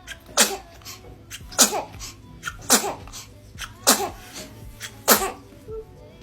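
Baby sneezing five times in a row, about a second apart, each sneeze sharp and sudden with a little squeak that drops in pitch at its end.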